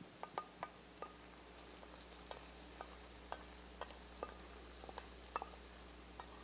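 Curry leaves and whole spices (mustard seeds, urad dal, cumin) frying in hot oil for a tempering: a steady soft sizzle with scattered sharp pops and crackles, about two a second.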